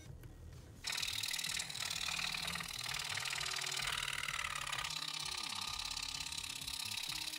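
Scroll saw with a #3 crown-tooth blade cutting plywood, a fast, steady reciprocating buzz that sets in suddenly about a second in.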